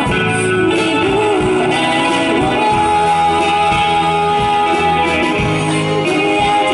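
Live band playing a pop-rock song: a woman singing into a microphone over electric guitars, bass guitar and a drum kit, amplified.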